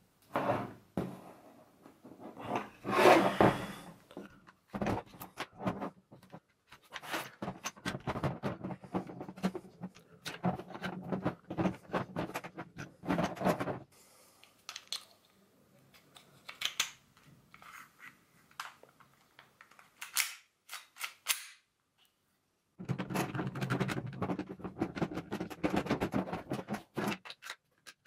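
Plastic and metal clicks, snaps and rattles of a Roni carbine conversion kit being taken apart and refitted around a Glock-pattern gas pistol, as parts slide, latch and lock into place. The sharpest run of clicks comes about three seconds in, and there is a short lull a little before the end.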